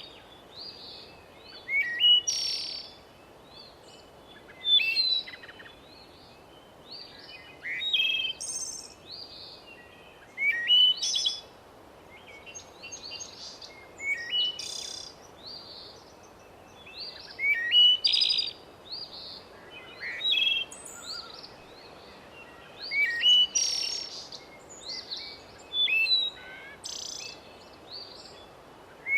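Songbirds singing, with short chirping phrases repeating every two to three seconds over a steady low background hiss.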